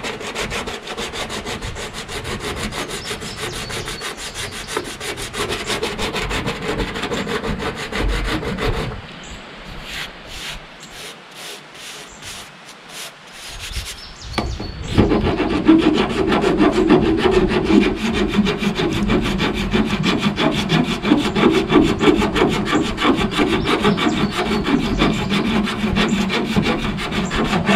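A hand tool scraping rapidly and steadily across a steel truck body panel. The scraping thins out to a few strokes about nine seconds in, stops briefly, and comes back louder about fifteen seconds in.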